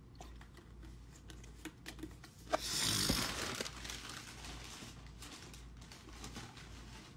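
Packaging being handled at a table: light rustling and small clicks, then a sharp click about two and a half seconds in, followed by about a second of loud crinkling and rustling that dies down into quieter handling.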